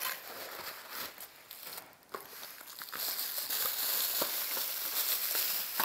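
Paper and plastic bubble wrap crinkling and rustling as packaging is lifted and handled, with scattered small crackles. It becomes denser and louder about halfway through.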